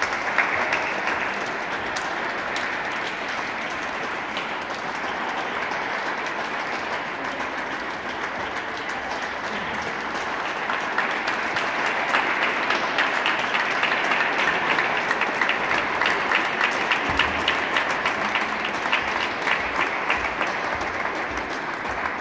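Volleyball players applauding each other after the match, many hands clapping together. The clapping grows louder and sharper about halfway through, then tapers off near the end.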